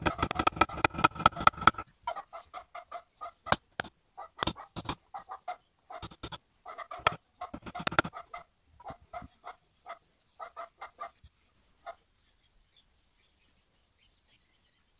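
Small hammer tapping on the metal vial ring of a wooden spirit level, partly through a punch, each tap with a short metallic ring. A fast run of taps opens, then slower, irregular taps with a few sharper strikes follow, stopping about twelve seconds in.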